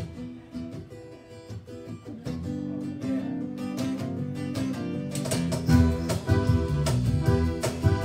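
Live band starting a song: strummed acoustic guitar chords open it, electric bass joins about two seconds in, and the full band with percussion comes in about five seconds in.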